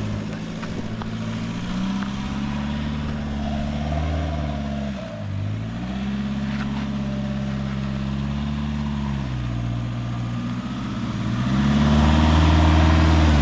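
Four-wheel-drive's engine working over a rough off-road track, its revs rising and falling. It builds up over the first few seconds, drops sharply about five seconds in, picks up again, eases off after nine seconds and revs harder near the end.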